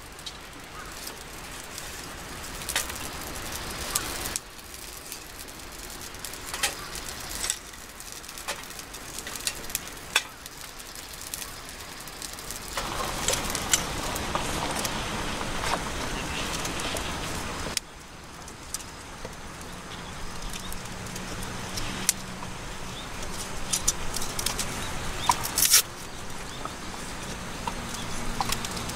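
Wood fire crackling in a small steel fire pit, with scattered sharp pops and clicks. For about five seconds midway, a louder steady rushing noise comes in.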